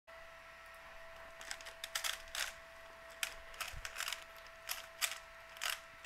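Stickerless 3x3 speed cube turned by hand: about a dozen short, irregular plastic clacks as its layers snap round, starting about a second and a half in, over a faint steady high tone.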